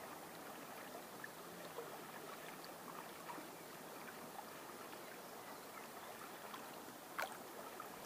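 Upper Volga river water flowing and lapping at the reedy bank: a steady, gentle rush with small scattered splashes and ticks, and one sharper click near the end.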